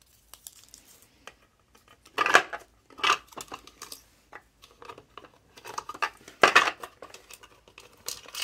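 Small sewing notions clicking and clattering against a hard plastic sewing case as they are handled and lifted from its compartments: irregular light ticks with a few louder knocks.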